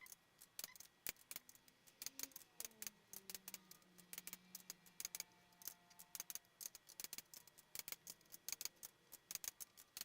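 Faint, rapid light clicking of a torque wrench's ratchet being worked on the cylinder head bolts during the final torque pass.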